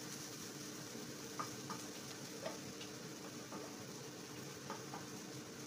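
Fish-roe bhaji frying in a nonstick pan with a low, steady sizzle, while a wooden spatula stirs it and gives a few light clicks and taps against the pan.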